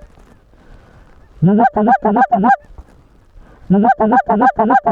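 Goose call blown in two quick series of about six clucking honks each, about a second and a half in and again near the end, calling to Canada geese working the decoys.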